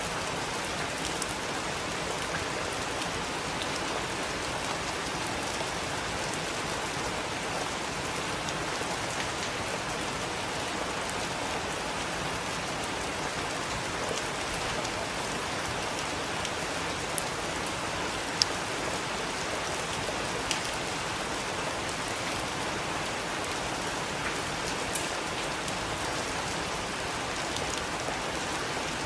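Steady heavy rain pattering on surfaces, with a few sharp drop impacts standing out around the middle.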